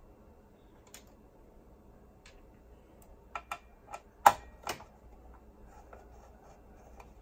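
Screwdriver clicking and tapping against a boombox chassis while screws are backed out: a few faint isolated clicks, then a quick run of sharper clicks about three and a half to five seconds in. The loudest of these comes a little past four seconds.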